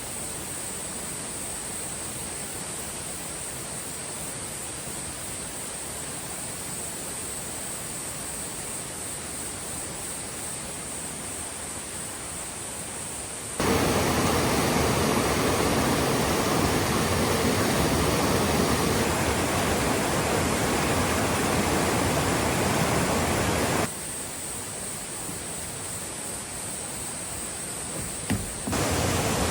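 Mountain valley stream rushing, with a steady high chirring of grass insects over it. The water abruptly gets much louder about halfway through for some ten seconds, drops back, then jumps up again just before the end.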